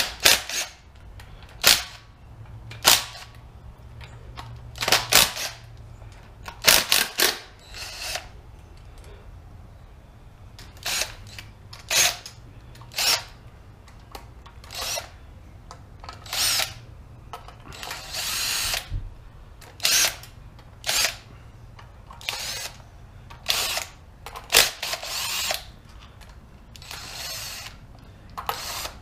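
Porter-Cable cordless drill backing out the valve cover bolts in about twenty short bursts of spinning. Most bursts are brief and a few run for about a second.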